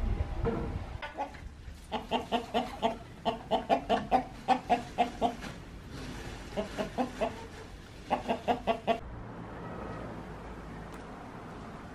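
Domestic chickens clucking in several quick runs of short, repeated clucks, about three or four a second.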